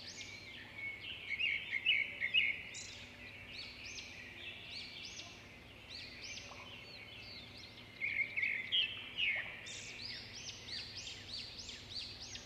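Several birds calling together in quick, overlapping high notes that rise and fall, busiest about two seconds in and again from about eight seconds.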